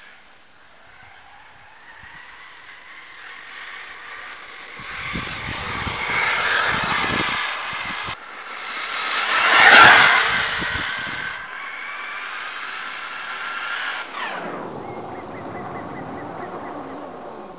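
Thunder Tiger 1/8-scale RC buggy running fast over dirt and gravel, its motor whining and changing pitch. It is loudest as it passes close about ten seconds in, and near the end its pitch falls steeply as it speeds away.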